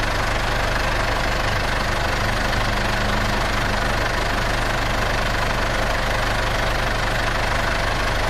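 International 885 XL tractor's diesel engine running steadily.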